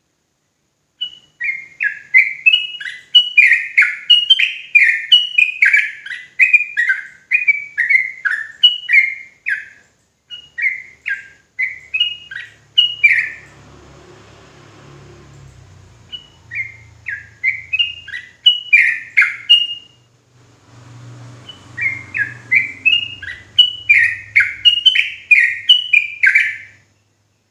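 Yellow-vented bulbul singing its fast 'ropel' song: rapid runs of short chirping notes in three bursts with two brief pauses. This is the kind of song bird-keepers play as a lure to set other bulbuls singing.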